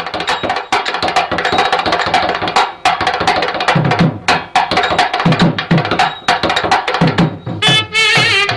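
Instrumental music led by fast, rhythmic drum strikes. Near the end a melodic instrument with a wavering pitch comes in.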